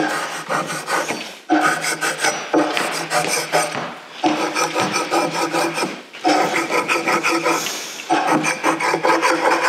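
Metal putty knife scraped hard across painted laminate boards in about five long passes, each a grating scrape with a squealing pitch, in a scratch test of how well the paint bonds.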